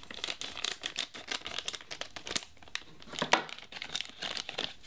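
Plastic blind-bag packet crinkling as it is snipped open with scissors and pulled apart: a steady run of sharp crackles, one louder crackle a little past halfway.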